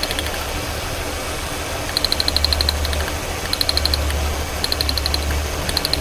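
Ford Taurus 3.0L V6 idling while a test light is touched to its waste-spark ignition coil towers: short bursts of rapid snapping, about a dozen a second, as the spark is grounded through the probe. Each burst kills a cylinder, and the idle changes as that cylinder drops out.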